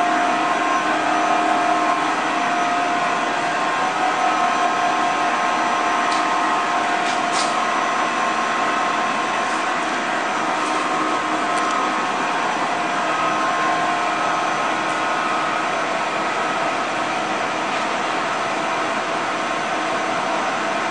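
Dainichi DL65 CNC lathe running with its spindle turning: a steady mechanical whine and hum, with a few faint ticks about six to seven seconds in.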